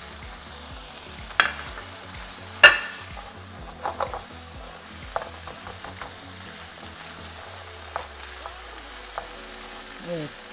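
Vegetables sizzling in butter and olive oil in a pan as they are stirred and sautéed. A spoon knocks against the pan now and then; the two sharpest clinks, about one and a half and three seconds in, are the loudest sounds.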